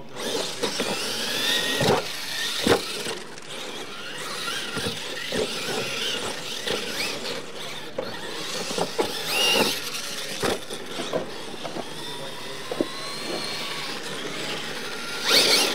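Radio-controlled monster trucks racing on dirt: their electric motors whine, rising and falling in pitch as they accelerate and back off, over a rough scrabbling noise, with several sharp knocks as they land and hit the ramps. There is a loud burst of noise near the end.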